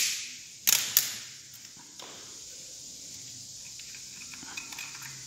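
Plastic engine-oil bottle being opened by hand: three sharp crackling snaps of the plastic cap and seal in the first second, then a few faint ticks near the end.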